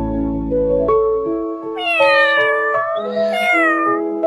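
A kitten meowing twice, each meow drawn out for about a second, over background music with held notes.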